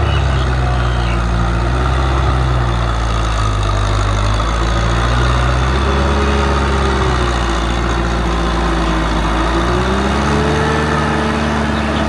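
Kubota M6040SU tractor's diesel engine running steadily under load while it pulls a rotary tiller through wet paddy soil, its note wavering a little around the middle.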